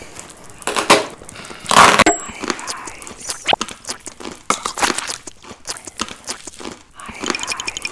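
Packing tape being ripped off a cardboard box, then the flaps pulled open and crumpled packing paper rustling: a run of sharp tearing, crackling and crinkling noises, loudest about two seconds in.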